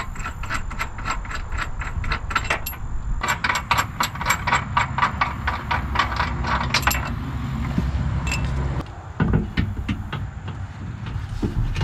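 Ratchet wrench clicking in a quick, even run of about five clicks a second, stopping briefly about three seconds in and thinning to a few scattered clicks in the last few seconds, over a steady low hum.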